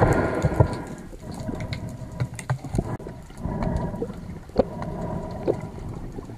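Sea water sloshing and rushing around a diver's camera, swelling twice, with scattered sharp clicks and crackles.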